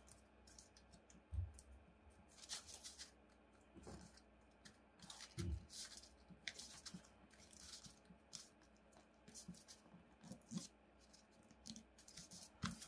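A sheet of paper being handled and creased by hand as small crimp folds are pressed flat: faint, irregular rustles and crinkles, with two soft low thumps against the table.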